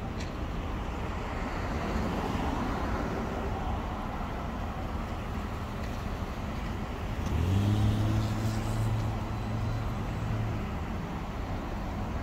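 Road traffic on a city street: a steady hum of passing cars. About seven seconds in, one vehicle accelerates past, its engine note rising and then holding for a few seconds.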